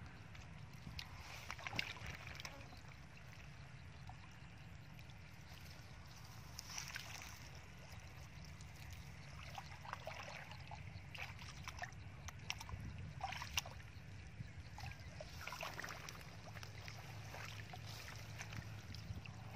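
Bare feet wading and stirring in shallow muddy water, with scattered small splashes and sloshes, over a low steady rumble.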